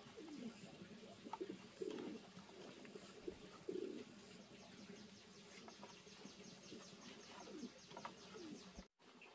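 Faint cooing of a dove, a few low falling calls, with light clicks of small handling noises. A fast, even, high ticking starts about halfway through.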